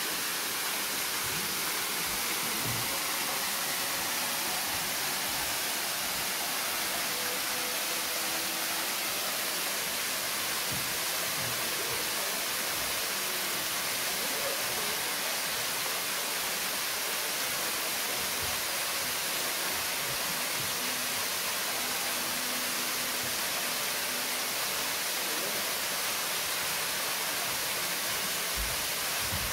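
Waterfall plunging down a rock face into a pool: a steady, even hiss of falling water.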